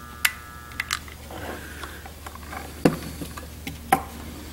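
Transformer-type soldering gun buzzing as solder is fed into a wire splice, cutting off about a second in as the gun is shut off. It is followed by a few sharp clicks and taps, the loudest two near the end.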